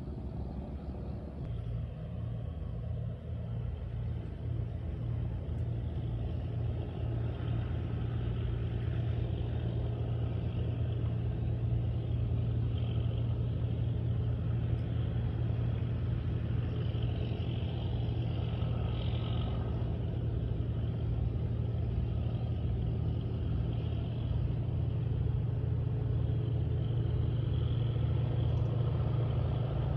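Diesel engines of squid-fishing boats under way, a steady low drone that slowly grows louder.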